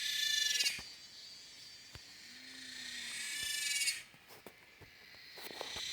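High, shrill insect buzzing that swells up twice and cuts off abruptly each time, the second time about four seconds in, with a few faint clicks.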